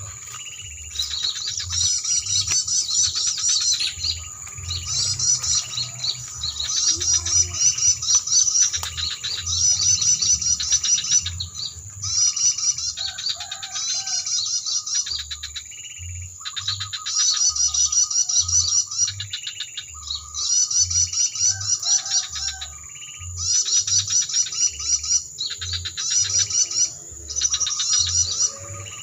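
Recorded bird-lure calls (suara pikat) played from an MP3 player's speaker: phrases of rapid, high chirping in bursts of one to two seconds, repeated over and over like a loop. A steady high tone runs beneath, with a low pulsing thump.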